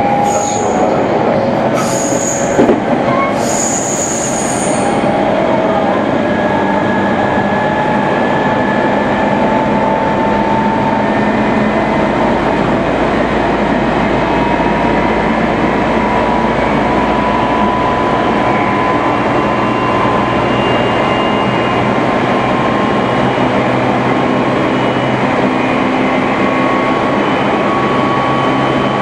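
Meitetsu 3100 series electric train running: a steady rumble of wheels on rail, with the traction motors' whine rising slowly in pitch as the train gains speed. A few short high squeals come in the first few seconds.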